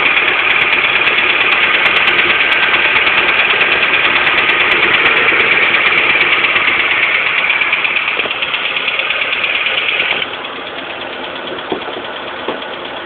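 Mitsubishi Colt Plus engine idling cold with a loud, high, rough whirring noise over it, which the owner takes for a belt noise. The whirring weakens and then cuts off suddenly about ten seconds in, leaving the idle.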